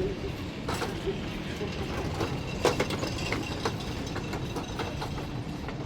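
Busy street-market ambience: a steady low rumble with many irregular clicks and clatters, the loudest a little under three seconds in.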